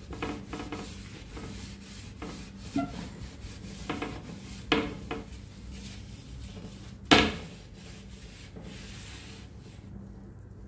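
A surface being scrubbed by hand to lift stubborn grime. Continuous rubbing, broken by a few short, sharper scrapes and squeaks; the loudest comes about seven seconds in.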